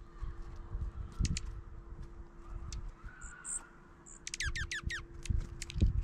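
Dark-eyed juncos at a seed feeder: soft taps and scuffles of birds pecking seed and landing, a few high thin call notes, and, a little past the middle, a quick run of about six sharp falling notes.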